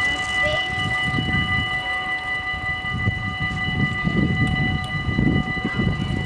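Dutch level crossing warning bells ringing steadily, with a low, uneven rumble underneath. The ringing marks the warning phase while the half-barriers lower ahead of an approaching train.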